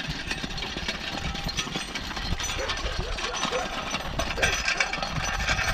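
A whiffletree dragged on its chain behind a walking horse, scraping and rattling continuously over a gravel road.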